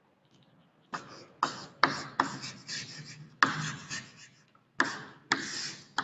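Chalk writing on a blackboard: a sharp tap at the start of each stroke followed by a scratchy rub, a string of strokes beginning about a second in as a word is written out.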